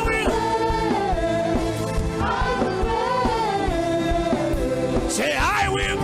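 Gospel worship music: a voice sings gliding, drawn-out notes without clear words over held keyboard chords and a steady bass.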